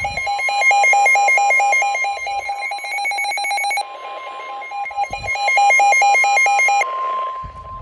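Emergency Alert System alert tones for a severe thunderstorm warning: two long bursts of rapid, repeating electronic beeps over a steady tone, which carries on alone after the beeping stops near the end.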